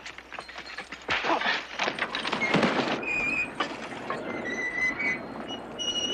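A scuffle on rocky ground: irregular thuds, scraping and feet on gravel, with a few brief high-pitched tones.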